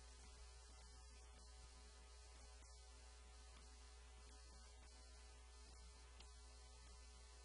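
Near silence: a steady low electrical mains hum with faint hiss on the recording line.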